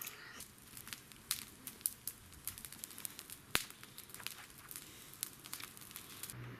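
Firework box and its contents being handled: irregular light crackling and clicks, with one sharper click about three and a half seconds in.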